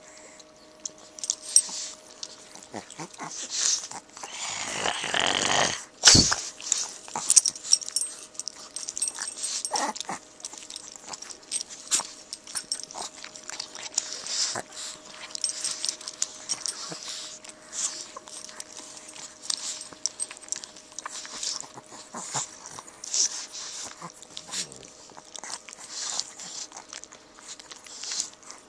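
Chihuahuas play-fighting at close quarters: a busy run of short sniffing, mouthing and scuffling sounds, with a louder noisy stretch of about two seconds some four seconds in that ends in a sharp click.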